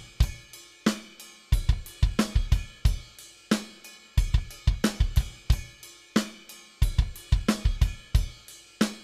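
Background music: a drum kit playing a steady beat, with kick drum, snare and cymbals.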